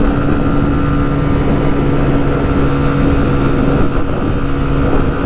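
Motorcycle engine running flat out in fifth gear at a steady, unchanging pitch, at the bike's top speed.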